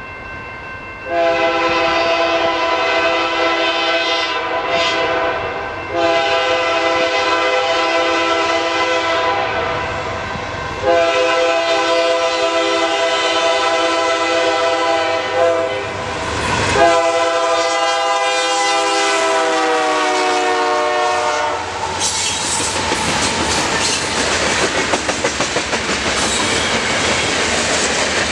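Diesel freight locomotive's air horn sounding four long blasts, each a chord of several notes, the last one dropping in pitch as the locomotive passes. Then the rumble and clickety-clack of covered hopper cars rolling past on the rails.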